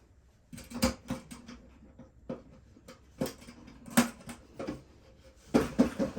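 Irregular sharp clicks and clatters of small hand tools and the plastic and metal parts of an RC truck being handled on a workbench, with the loudest cluster near the end.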